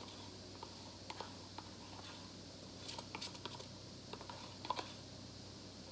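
Faint, scattered clicks and light taps from handling a paper cup while layering acrylic paint into it, bunched about three seconds in and again near five seconds, over a low steady hum.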